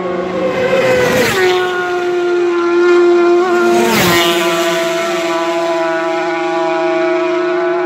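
Racing superbike engines at full throttle, a high steady engine note. The pitch drops a little over a second in, then again sharply about four seconds in as a superbike passes close at speed.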